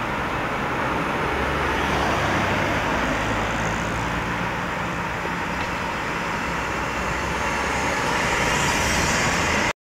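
City street traffic: cars running along the street in a steady wash of engine and tyre noise. It cuts off abruptly near the end.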